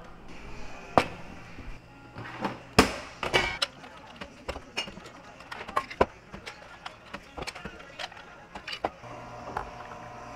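Ice-filled glass tumblers clinking and knocking as they are handled and set down on a counter: a scattered series of sharp clinks.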